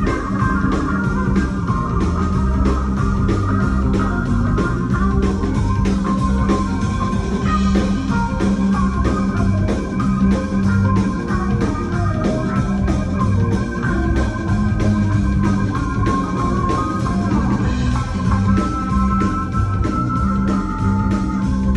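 Live rock band playing, led by a keyboard with an organ tone over drums with a steady beat and a heavy bass line.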